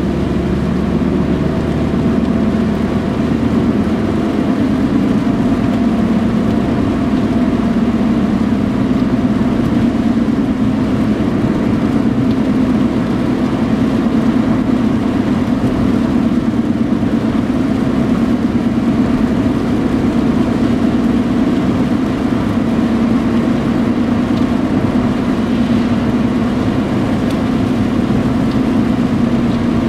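Car engine and road noise heard from inside the cabin while driving: a steady low drone whose pitch drifts only slightly.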